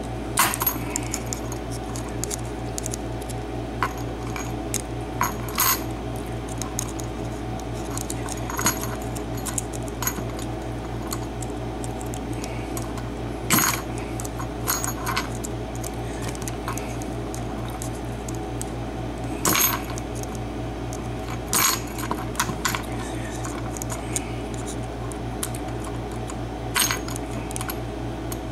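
Sharp metallic clicks and clinks at irregular intervals, about eight of them, from a metal tool working at a Trelock euro cylinder lock while it is being taken apart, over a steady low hum.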